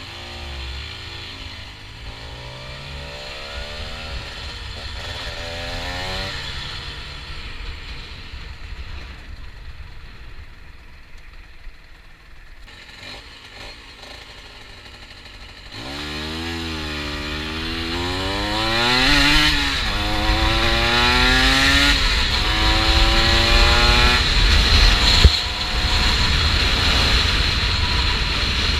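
Honda NSR125's two-stroke single-cylinder engine ridden under acceleration, its pitch rising and dropping back in steps as it shifts up through the gears, then quieter at lower revs for several seconds before a harder run up through the gears in the second half. Wind and road noise rumble underneath, with a sharp knock about 25 seconds in.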